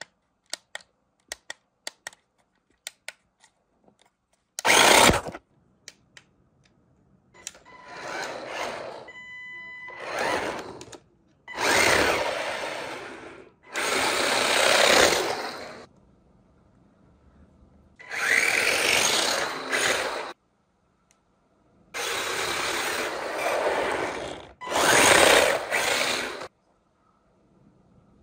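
Small electric motor and gearbox of a 1:18 four-wheel-drive RC drift car whirring in repeated bursts of one to three seconds as it is throttled, some bursts rising in pitch. A few light clicks come first, and there is a short beeping tone about nine seconds in.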